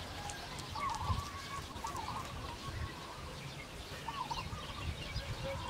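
Bird calls: a few short, wavering phrases about a second, two seconds and four seconds in.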